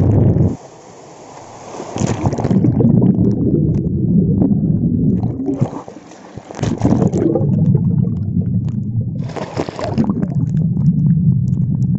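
Muffled low rumble of churning waterfall water, heard from under the surface through a phone sealed in a waterproof pouch. The rumble drops away briefly twice, near the start and about halfway, as the phone comes up out of the water. Each time it goes back under there is a splash, and there is a loud splash near the end.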